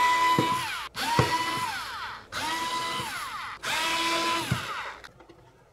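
Bosch cordless screwdriver working on the screws of a plastic speaker housing, running in four short bursts. Each burst is a steady whine that drops off as the motor stops.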